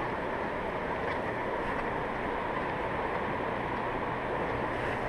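Steady rush of fast-flowing river water through rapids.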